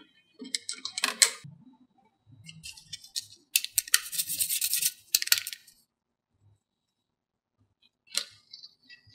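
Wooden sticks topped with foam balls clicking and rattling against each other as they are handled and set down. There are short runs of light clicks, a longer rattling run around the middle, a pause, then a few clicks near the end.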